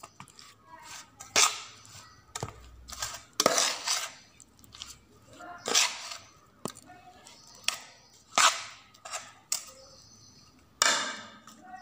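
Metal spoon knocking and scraping against a steel pot while stirring chopped bitter gourd into chili powder and spice powder, in irregular strokes about once a second.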